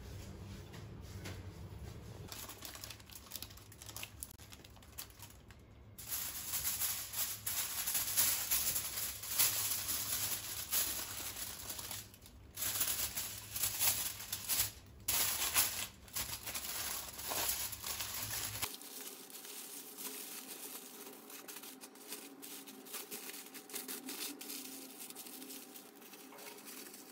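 Aluminium foil crinkling and rustling as it is folded and wrapped by hand, loudest from about six seconds in until about two-thirds through, with a few short breaks. The last third is quieter.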